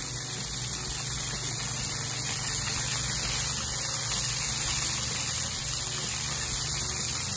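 Sauce of soy sauce, honey and sautéed garlic sizzling steadily in a frying pan.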